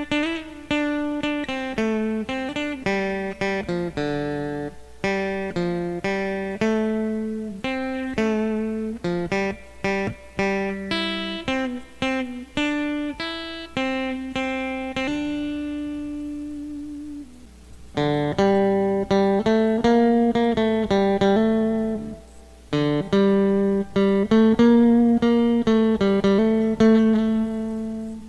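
Electric guitar fitted with KYO-UP handmade pickups, played clean through a Fender amp and recorded by line with no effects pedals. It picks a 1960s Mosrite-style single-note melody, with one long note left to fade about halfway through and vibrato wavering the held notes later on.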